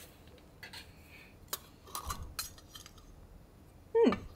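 Metal camping pot lid being lifted off a pot of freshly cooked rice: a few light metallic clicks and clinks, with a louder short sound about four seconds in.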